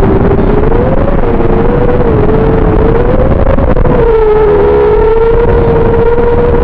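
XBEE X v2 FPV racing quadcopter's motors whining, the pitch wavering up and down with the throttle over a steady rush of prop and air noise, holding steadier from about four seconds in.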